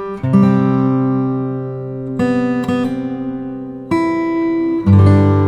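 Background music: acoustic guitar playing slow chords, each new chord struck and left to ring and fade.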